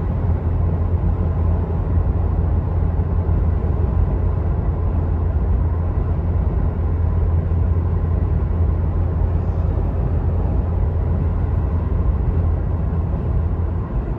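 Steady in-cabin driving noise of a 2011 Toyota FJ Cruiser cruising at about 60 mph: a low drone from its 4.0-litre V6 engine mixed with road and tyre noise.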